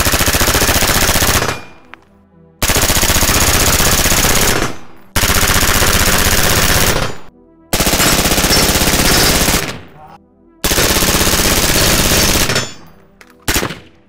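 Budget AR-15 (PSA Freedom) firing five long bursts of rapid automatic fire, each about two seconds, then a brief burst near the end. The rifle is being shot to wear-out and, as the shooters judge it, is running under-gassed, with worn gas rings causing bolt-over-brass stoppages.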